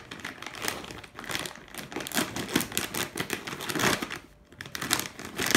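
Plastic food bag crinkling and crackling as it is cut and torn open with a kitchen knife: a dense run of irregular crackles, with a brief lull about four seconds in.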